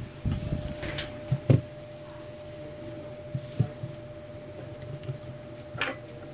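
Handling noise from a smartphone being turned over in the hands and set down on a rubber work mat: rubbing and a few light knocks, the loudest about a second and a half in. A faint steady hum runs underneath.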